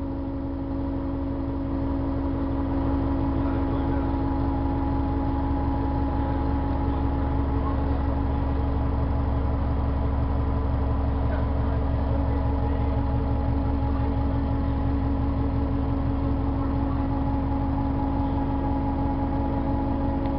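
Interior of a 1996 New Flyer D40LF transit bus: its Detroit Diesel Series 50 diesel engine running steadily, a deep rumble with a steady higher-pitched whine over it, heard from inside the passenger cabin.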